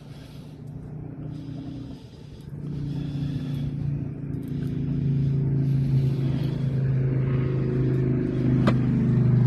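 A boat's motor running with a steady low hum that grows louder over the first half and then holds; one sharp click near the end.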